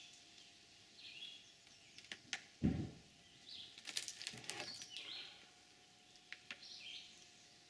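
A small bird calling over a faint steady hum, one short call about every one and a half seconds. About two and a half seconds in come a few sharp knocks and a heavy wooden thud, with more knocking a second or two later, as a squared log is rolled over on sawhorses.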